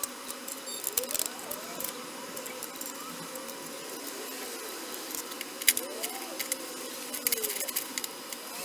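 Scattered light metallic clicks and taps from steel hardware and tools being handled on a steel plate, at irregular intervals with one sharper click a little past halfway, over a faint steady hum.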